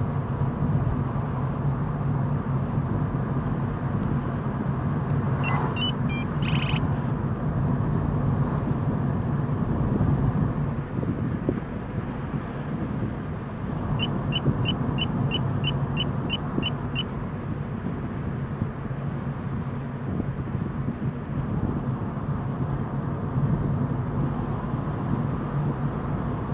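Steady engine and road drone inside a moving car. About five and a half seconds in, an entry-level radar detector gives a short burst of tones as it is switched on. Around fourteen seconds in it sounds about ten quick, evenly spaced beeps over three seconds: a K-band alert set off by an automatic door opener.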